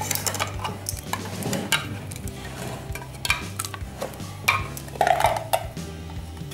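A metal jar opener hooking and prying at the tin seaming lid of a glass pickle jar: scattered scraping clicks of metal on metal, with a louder rasping scrape about five seconds in.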